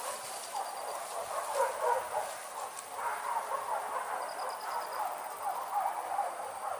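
Pack of hunting dogs barking and yelping, a dense, continuous jumble of many short calls. A brief high-pitched trill sounds twice.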